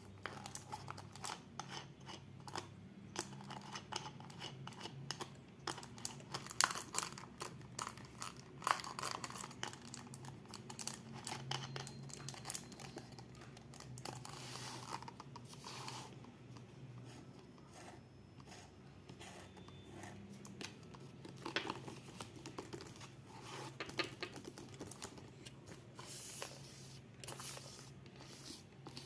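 A fidget board being played with by hand: an irregular run of small sharp clicks and snaps, mixed with short scratchy, tearing rasps.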